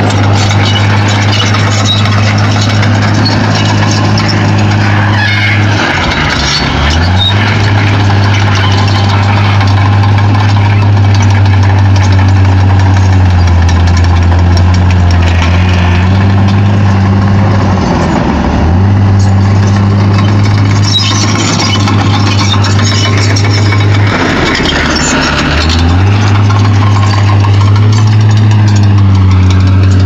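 Heavy earthmoving machine's diesel engine running steadily under work. Its note sags briefly and recovers three times, with some metallic clatter over it.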